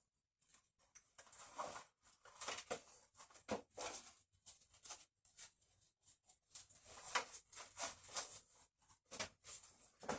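Quiet rustling and light clicks of things being handled, in short scattered bursts; the saw is not running.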